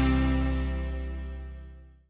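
Background music: a held chord rings out and fades away to silence near the end.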